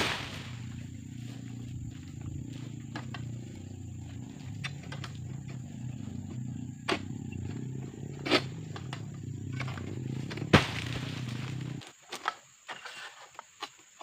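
Egrek, a curved sickle blade on a long pole, cutting at an oil palm's fronds. Sharp snaps and knocks come at irregular intervals, the loudest about ten seconds in, over a steady low hum that stops near the end.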